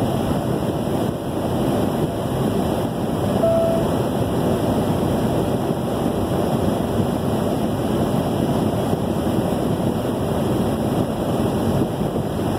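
Steady road and wind noise of a vehicle cruising at highway speed, heard from inside the cab: an even hiss with no clear engine note.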